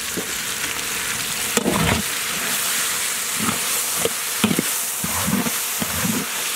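Onions, green chillies and freshly added sliced tomatoes sizzling in hot sesame oil in a large metal pot. A flat metal ladle stirs them, scraping and knocking against the pot in irregular strokes from about a second and a half in.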